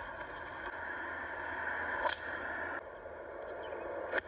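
Two sharp golf club strikes on the ball, about two seconds apart, over a steady outdoor hiss; the second, near the end, is a shot played out of a sand bunker.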